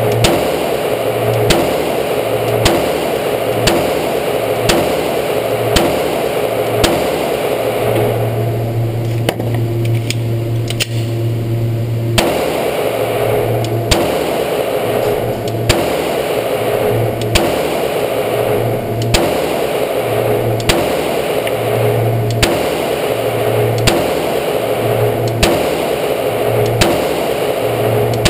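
Glock 22 .40 S&W pistol fired in steady slow fire, about one shot a second, with a pause of about four seconds partway through. The shots echo off the range walls over a steady background hum.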